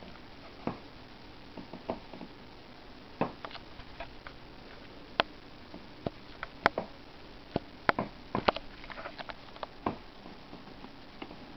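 Handling noise: irregular light clicks and taps, more of them in the second half, over a faint steady hiss.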